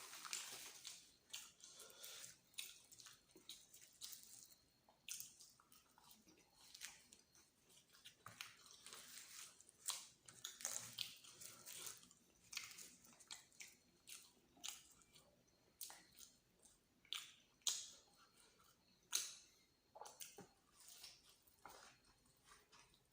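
Close-miked chewing of luchi and spicy egg masala: irregular soft, wet mouth clicks, with a few sharper, louder clicks now and then.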